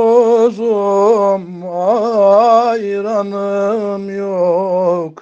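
Unaccompanied male voice singing a long melismatic phrase of a Turkish ilahi (devotional hymn), the pitch wavering up and down in ornaments, with no instruments.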